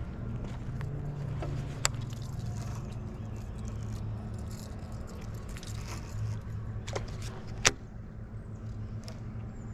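Steady low hum of road traffic, with a few sharp clicks: one about two seconds in, and two near the end.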